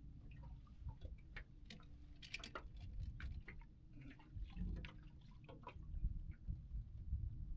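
Irregular light clicks and taps from handling gear in a small fishing boat, most of them about two to three seconds in, over a low rumble of wind on the microphone.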